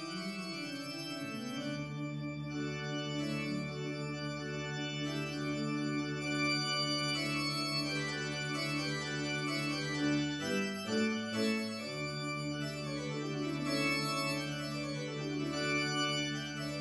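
Background music of slow, long-held organ-like chords, with a change of chord about eleven seconds in.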